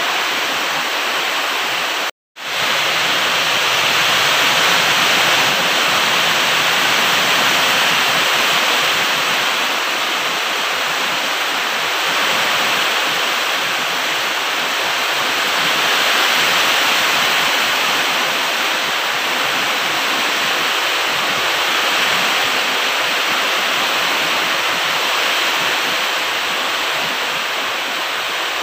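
Loud, steady rushing noise with no separate events in it, resembling falling water. It cuts out completely for a moment about two seconds in.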